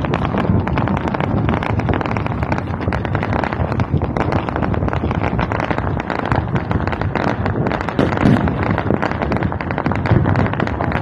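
Fireworks display: a dense, continuous barrage of bangs and crackling with no pause between bursts.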